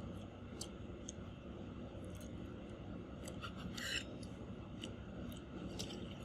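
Eating by hand from a plate: small clicks and scraping sounds, with one short, louder scrape or crunch about four seconds in, over a steady low background hum.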